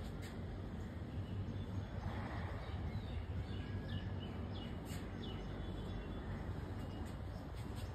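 Outdoor ambience: a steady low rumble with a few short bird chirps, most of them between about three and five seconds in.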